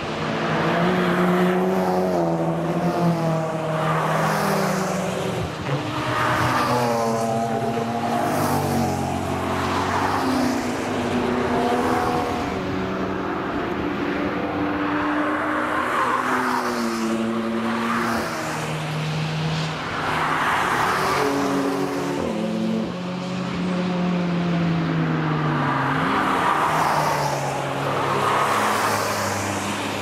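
A string of cars being driven hard through a corner, passing close one after another. Their engines rev up and down in pitch as they accelerate and change gear, with the sound swelling as each car goes by.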